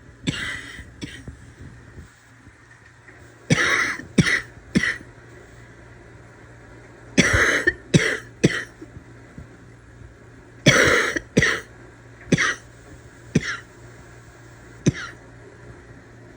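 A person's barking cough from a cold, in fits of two to four harsh coughs every few seconds, with a few single coughs near the end.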